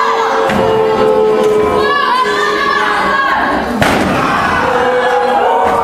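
A wrestler's body slams onto the ring mat with a single sharp thud about four seconds in. Behind it are crowd noise and voices, with steady held tones from music in the hall.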